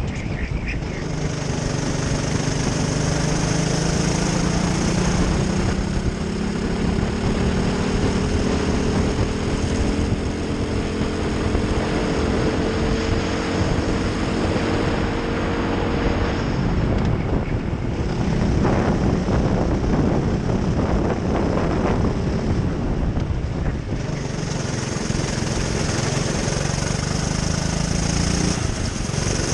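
Racing kart's engine heard on board, its note climbing steadily as the kart accelerates, falling away about sixteen seconds in as it comes off the throttle, then climbing again and dropping near the end. Wind rushes over the microphone.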